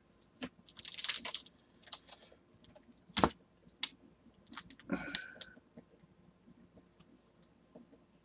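Scattered taps and clicks of typing on a computer keyboard, with one sharper click about three seconds in.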